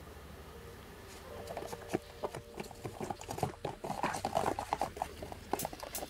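A cardboard box of Dolce Gusto coffee capsules being handled: its flap is pulled open and the capsules inside are rummaged through. It makes a run of light scraping, rustling and tapping that starts about a second and a half in.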